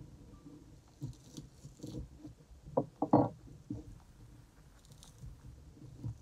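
Gloved hands handling a rack of raw pork ribs on a wooden cutting board while working the membrane off the back: soft, irregular handling and squelching noises, with a short cluster of louder knocks against the board about three seconds in.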